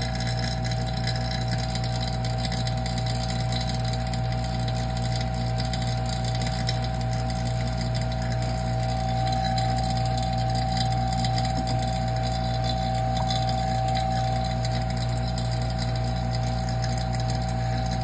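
Oil-sealed vacuum pump running steadily as it pulls the chamber down to near full vacuum, with a constant low hum and a steady whine.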